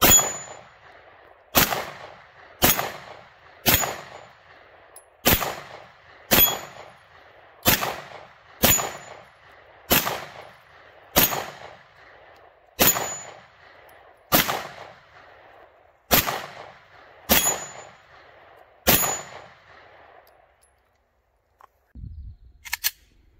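A Glock 19 9 mm pistol fired fifteen times in slow, steady succession, about one shot every second to second and a half. Each shot is followed by a short echoing tail. A couple of faint clicks follow near the end.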